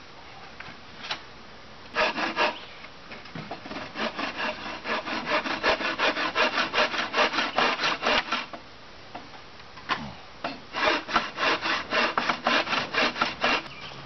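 Hand saw cutting through pallet wood in quick back-and-forth strokes. It comes in three runs with short pauses between them: a brief one, then a long steady one, then another.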